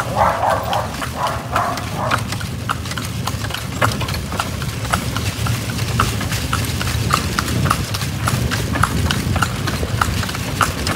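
A horse's hooves clip-clopping in a steady, even rhythm as it pulls a kalesa, a horse-drawn carriage, over a steady low rumble.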